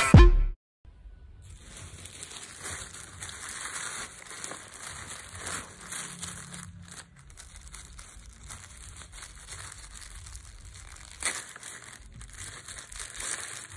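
Grey plastic mailer bag crinkling as hands squeeze and turn it over, with one sharper, louder crackle near the end.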